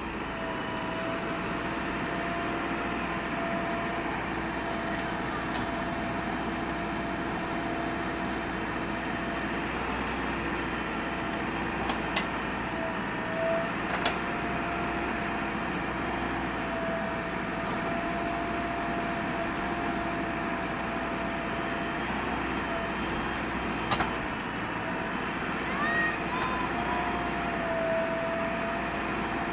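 Steady machine engine hum, most likely a backhoe loader running, with a few sharp clicks and a brief squeak near the end.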